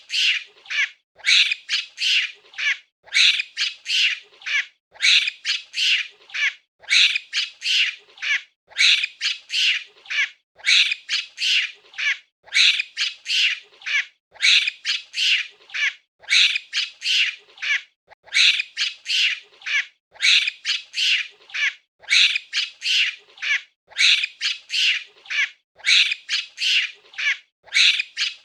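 High-pitched monkey calls in quick clusters of several. The same pattern repeats about every two seconds, like a loop.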